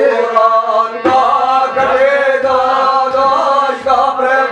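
Group devotional chanting: several voices, men's most prominent, singing a guru bhajan together over held instrumental tones, with a low, regular beat underneath.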